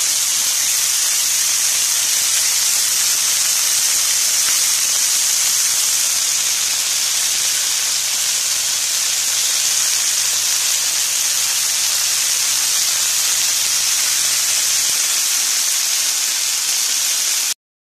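Fried rice sizzling in a frying pan: a loud, steady hiss with a faint low hum underneath that stops about three-quarters of the way through. The hiss cuts off suddenly near the end.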